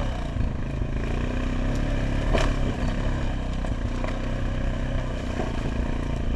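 ATV engine running steadily at low throttle, with one sharp knock about two and a half seconds in.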